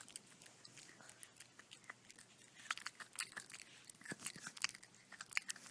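A puppy gnawing and chewing, heard as faint, sharp clicks of biting and crunching that come thicker and louder from about halfway through.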